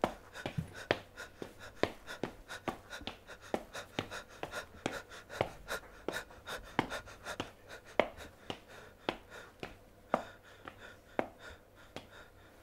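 An uneven series of short, sharp taps and clicks, about two to four a second, with a few louder knocks.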